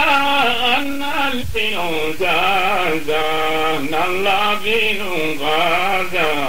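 A man singing a chant-like melody in long phrases, his pitch wavering up and down; a brief low thump about one and a half seconds in.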